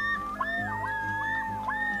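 Music with a high gliding melody that repeats in short arching phrases, about three a second, over a low pulsing bass.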